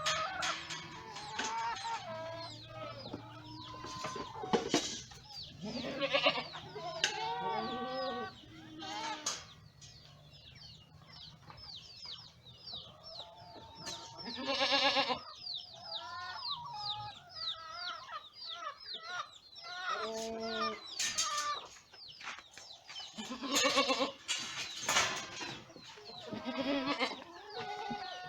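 Boer goats bleating and chickens clucking together, with calls coming one after another. The loudest bleats come about halfway through and again in the last few seconds.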